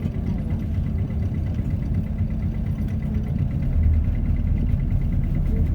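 City bus engine and running gear rumbling low inside the cabin as the bus slows for its stop, with a steady engine note that fades out about three seconds in.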